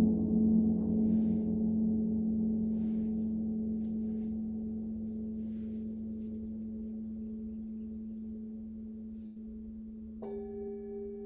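Singing bowl ringing with a long sustained low tone that wobbles at first and slowly fades. About ten seconds in, a second, higher-pitched bowl is struck and rings on steadily with the first.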